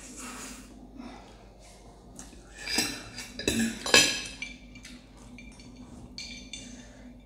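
Metal forks clinking and clattering against a glass plate of noodles, with a few sharp strikes about three to four seconds in. Quieter slurping of noodles comes at the start.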